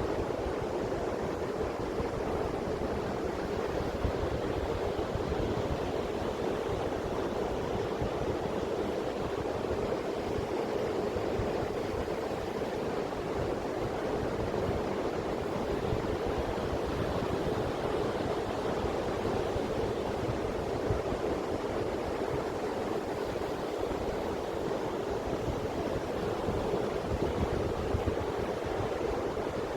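Steady wash of sea surf breaking on a beach, with wind rumbling on the microphone.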